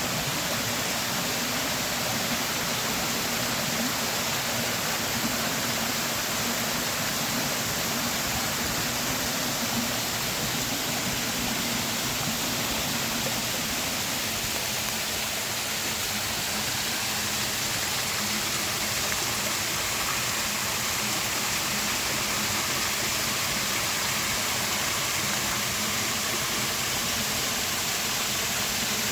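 Creek water rushing steadily down rainforest cascades, an even, unbroken rush.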